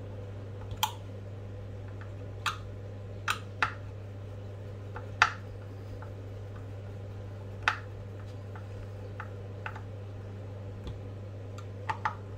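Irregular light clicks and ticks of a hex driver working screws into a metal RC-car motor mount, over a steady low hum.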